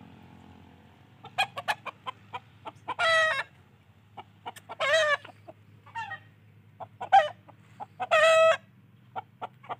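Chickens clucking: a run of short clucks starting about a second in, with several louder pitched calls of about half a second each, around three, five and eight seconds in.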